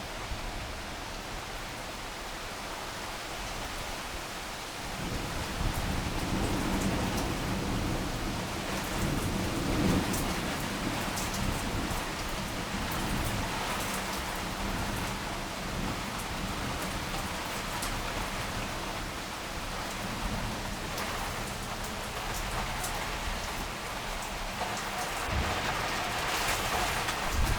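Heavy rain pouring steadily, with a long roll of thunder rumbling in about five seconds in, loudest a few seconds later and dying away over the next ten seconds.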